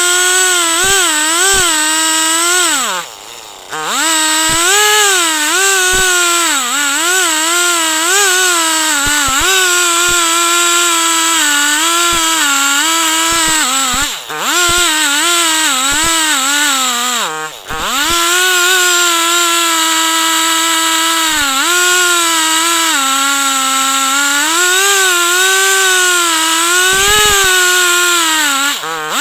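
Chainsaw running at high revs under load, ripping a log lengthwise in an Alaskan-style chainsaw mill. The engine speed wavers throughout and dips sharply for a moment four times, about 3, 14, 17 and 29 seconds in.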